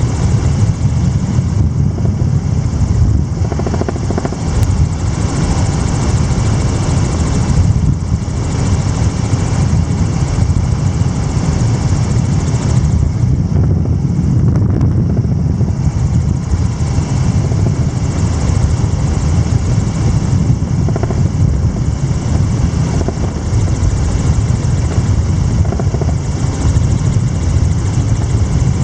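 Helicopter rotor and engine noise, a loud steady rumble and whoosh with no let-up, as heard from aboard during flight.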